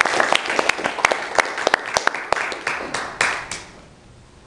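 Audience applauding, dense clapping that fades away over the last second or so.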